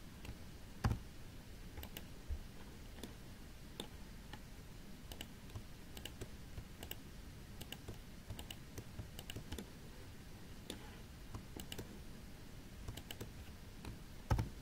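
Irregular, quiet computer mouse and keyboard clicks, with two louder knocks, about a second in and near the end.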